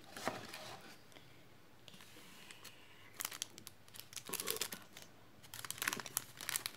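Clear plastic packaging crinkling and small items clicking on the desk as they are handled: quiet at first, then two short spells of crinkling and clicks, about three seconds in and again near the end.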